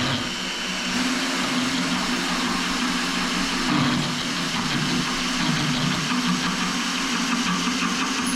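Power drill running steadily with a hole saw grinding into porcelain tile, just starting the cut.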